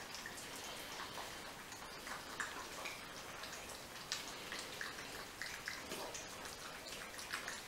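Several puppies eating from food bowls: irregular wet lapping, chewing and smacking, with small clicks of food against the bowls.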